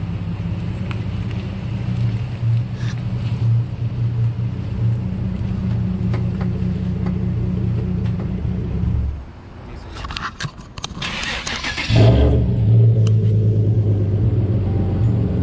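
A car engine idling, which stops about nine seconds in; after a couple of seconds of clattering it starts up again at a louder idle.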